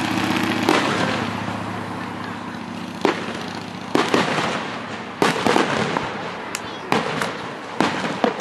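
Aerial fireworks bursting overhead: a string of sharp bangs, a couple spaced out in the first few seconds, then coming in quick clusters of two or three from about four seconds in.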